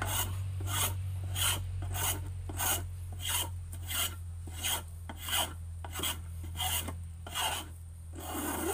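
A hand tool rasping back and forth on the wooden handle of a home-made paddle, shaping the grip, in even strokes about two a second. A steady low hum runs underneath.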